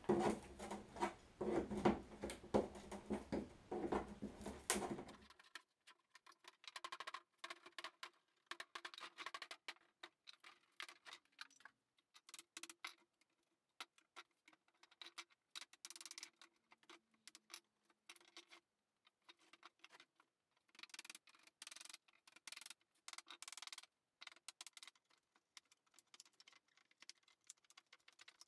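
Wooden frame being pried apart and dismantled by hand, with dense knocks of timber for about the first five seconds. After that come faint, rapid pattering clicks and taps of hand-tool work on the wood.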